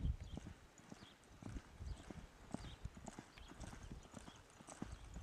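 Hoofbeats of a horse loping across a soft dirt arena: a steady run of muffled thuds, with a brief low rumble at the very start.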